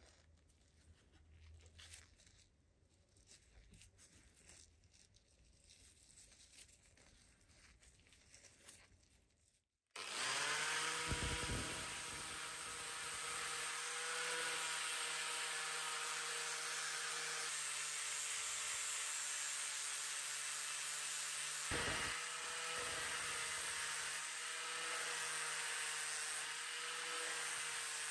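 Quiet for about ten seconds, then an angle grinder spins up and runs steadily, its P80 abrasive disc sanding deep scratches out of a rusty forged steel hammer head.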